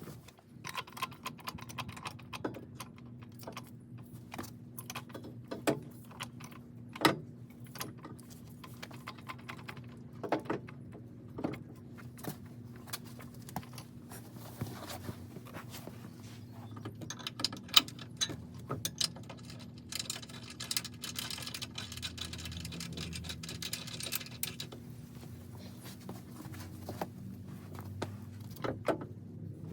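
Irregular metallic clinks, taps and rattles of small hardware being handled and fitted, as clips are installed on steel rock sliders. A denser stretch of rough rasping noise comes about two-thirds of the way through.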